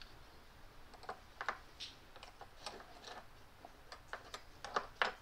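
Irregular light clicks and taps of small metal smog-pump parts being handled and cleaned, starting about a second in, with the loudest clicks near the end.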